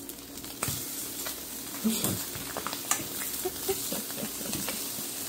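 Slices of canned luncheon meat sizzling in a nonstick frying pan, with a steady hiss. A few sharp clicks and scrapes come from the spatula and fork turning the slices against the pan, which are now fried golden brown.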